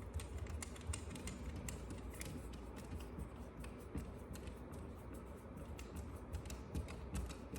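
Faint, irregular small clicks and taps from the parts of an HDB68 less-lethal pistol being handled, over a low steady hum.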